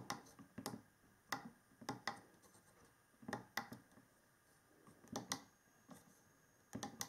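Faint, irregular clicks of the small tactile push buttons on a DC-DC boost converter module, pressed a dozen or so times, several in quick pairs, to step up its current setting.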